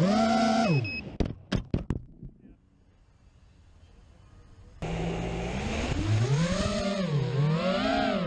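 A 4-inch QAV-R FPV quadcopter's electric motors whine, their pitch rising and falling with the throttle, then winding down. Several sharp knocks follow, as from the quad striking something, and then it goes nearly quiet. About five seconds in, the motor whine comes back abruptly and again swings up and down in pitch.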